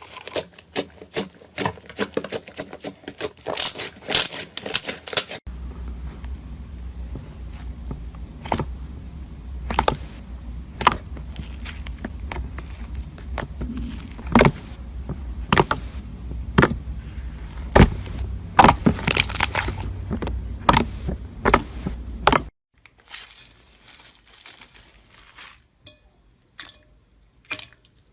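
Crunchy slime being pressed and squeezed close to the microphone, with a dense run of sharp clicks and crackles. The texture changes abruptly about five seconds in and again near the end, with a low hum under the middle stretch.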